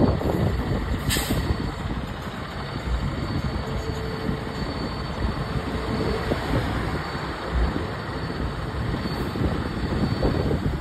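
Heavy rescue fire truck's diesel engine idling, with a short burst of air hiss about a second in, typical of the air brakes.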